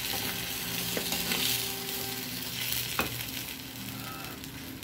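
Tomato sauce with ground pork and chopped hot dogs sizzling in a steel frying pan as a slotted metal spatula stirs it. The spatula scrapes and clicks sharply against the pan about a second in and again near three seconds.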